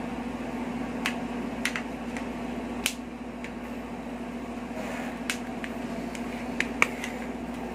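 Short, sharp plastic clicks, about half a dozen at irregular intervals, as the back case cover of a Vivo Y81i phone is pried off its clips by hand, over a steady low hum.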